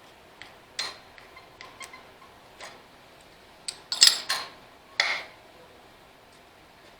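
Hand tools clicking and clinking against metal while a cotter pin is worked out of the hand crank assembly's spring: a scattering of sharp clicks, loudest in a cluster about four seconds in and again about five seconds in.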